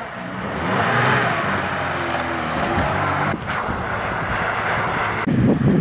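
Lada Niva's engine running under load as the 4x4 drives through mud and puddles, with the sound changing abruptly between shots; a louder rush near the end.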